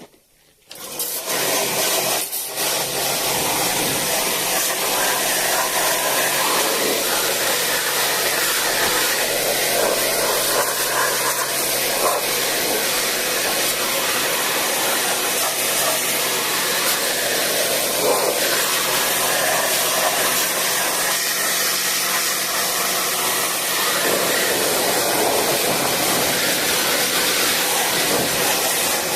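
A small electric motor switched on about a second in, then running steadily with a loud airy hiss and a low hum.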